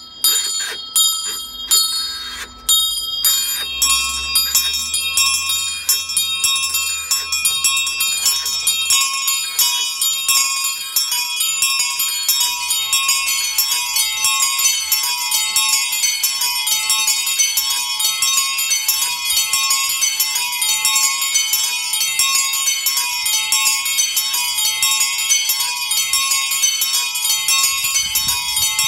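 Several small bronze bells of a motorised miniature bell tower swinging and ringing together. Separate strokes at first, then more bells join in the first few seconds and their strokes overlap into a continuous peal.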